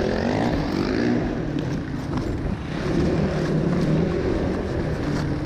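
2008 Yamaha WR450F dirt bike's single-cylinder four-stroke engine revving, its pitch rising and falling as the throttle is worked.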